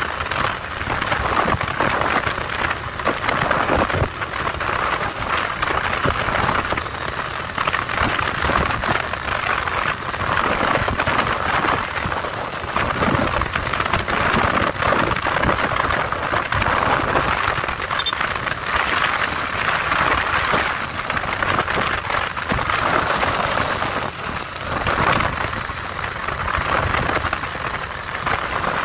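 Motorcycle riding along a road: its engine running under a steady rush of wind and road noise on the microphone.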